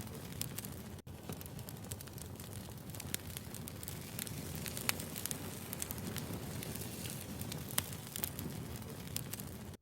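Wood fire crackling, with frequent sharp pops over a steady low rumble of the burning logs. The sound cuts out for an instant about a second in.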